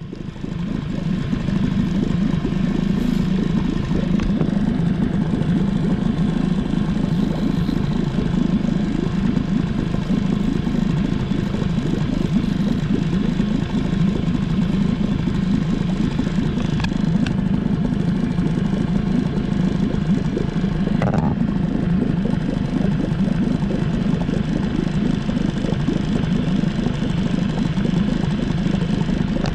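Small boat outboard motor running steadily at a constant speed, loud and close to the microphone.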